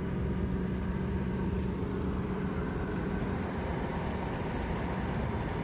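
Suzuki Grand Vitara driving on the highway: a steady engine hum under road noise.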